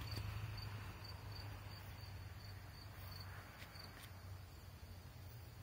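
Faint cricket chirping in a regular rhythm, about three high chirps a second, fading out about four seconds in, over a low steady hum.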